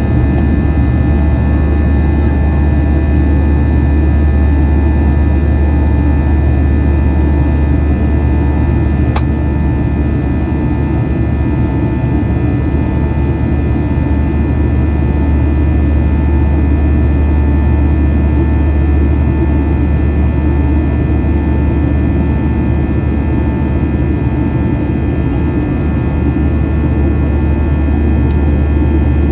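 Jet airliner's turbofan engine heard from inside the cabin during the climb after takeoff: a steady, loud rumble with a whine of several steady tones above it. A faint tick comes about nine seconds in.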